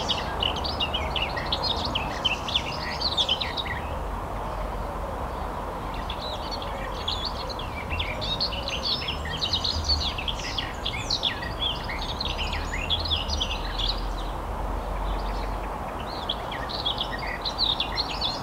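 Garden songbirds singing and chirping in quick clusters of short notes, with brief lulls, over a steady low background rumble.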